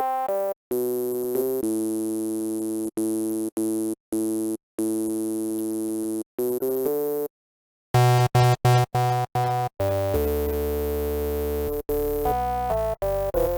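Native Instruments Massive software synthesizer played from a keyboard: a run of separate pitched electronic notes that start and stop abruptly. After a short break about seven seconds in come lower, heavier notes, then a longer held note with a hissy top.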